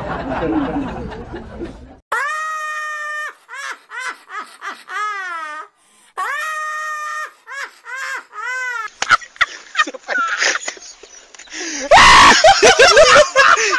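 High-pitched, sped-up laughing sound effect. Twice, a long squeal is followed by a run of short yelping laughs. Near the end comes a loud burst of shrieking laughter.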